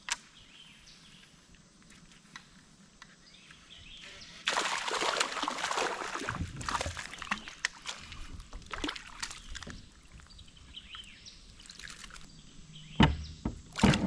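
Water sloshing and splashing around a kayak, getting louder about four and a half seconds in and surging unevenly, with a couple of sharp knocks near the end.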